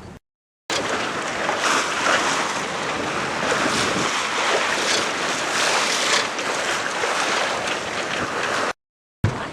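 Sea water rushing and splashing along the hull of a Westerly Fulmar sailing yacht under sail, with wind buffeting the microphone. The sound cuts out to silence briefly just after the start and again near the end.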